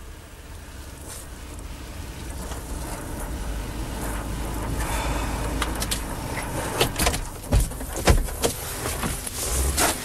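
Car engine running as the car drives up and stops, growing louder over the first six seconds. This is followed by a series of sharp clicks and knocks about seven to eight seconds in, and another near the end.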